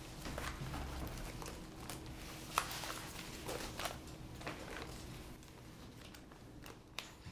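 Sheets of paper being handled and leafed through: soft rustling and light taps, with a sharper click about two and a half seconds in.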